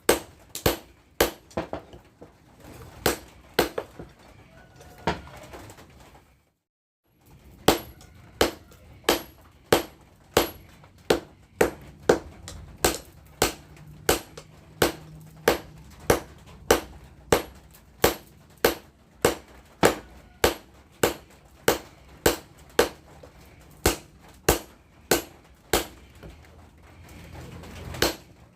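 Hammer blows on steel, about one and a half strikes a second in a steady rhythm, each with a short metallic ring: a rotary tiller blade being hammered into a machete. The strikes stop for about a second of silence around six seconds in, then carry on.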